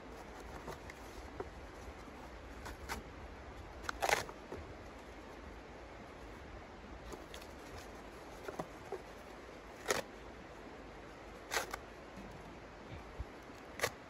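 A handful of sharp clicks and small knocks as sticks of kindling are handled and set into the steel firebox of a small portable wood stove. The loudest comes about four seconds in and three more follow near the end, over a steady faint hiss.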